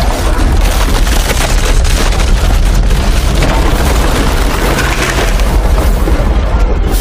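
Film battle sound effects: a dense, continuous din of booming impacts and crashes over a heavy low rumble.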